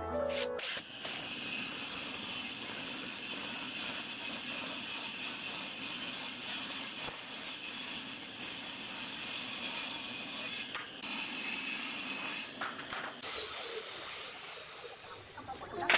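Woodworking power tools working boards: a table saw ripping a board, then, after a couple of short breaks, a small handheld router running along a board edge near the end. It is a steady, hissing machine noise.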